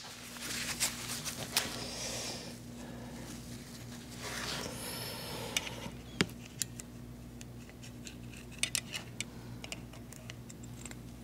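Light scattered clicks and scrapes of small metal parts and a gloved hand rummaging around a small engine, with two short scraping stretches about two and five seconds in, over a faint steady hum.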